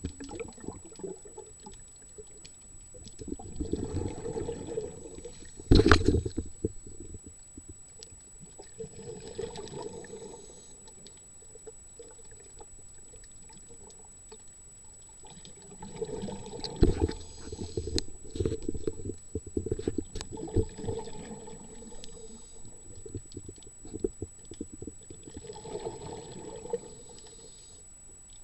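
Water bubbling and sloshing in surges every few seconds, with scattered clicks and one sharp knock about six seconds in.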